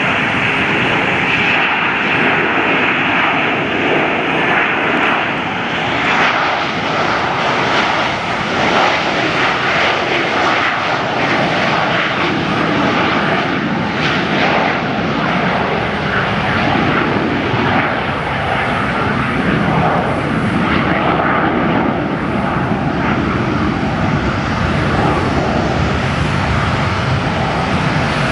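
Twin rear-mounted Pratt & Whitney JT8D turbofans of a McDonnell Douglas MD-88 running at takeoff thrust during the takeoff roll: a loud, steady jet noise with a faint steady whine. The airliner rotates near the end.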